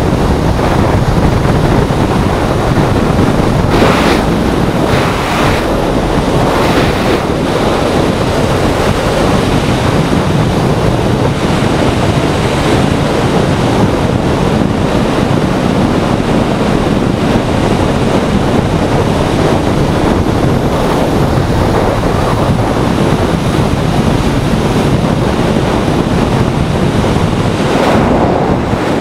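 Steady wind rush buffeting the microphone of a Honda CBR600F3 sport bike on the move, with the bike's inline-four engine running underneath and a few louder gusts about four to seven seconds in.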